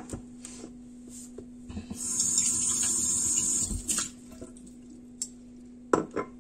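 Kitchen tap turned on, with water running into the sink for about two seconds starting about two seconds in. A few light knocks come before and after it.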